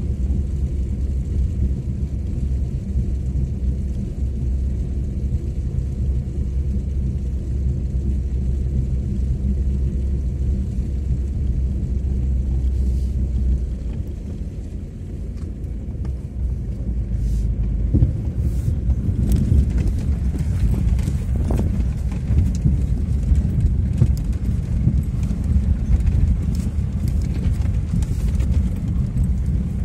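Vehicle engine and body rumbling low and steady, heard from inside the cab while driving. It dips briefly about halfway through, and then irregular knocks and rattles from the vehicle come in, growing thicker toward the end.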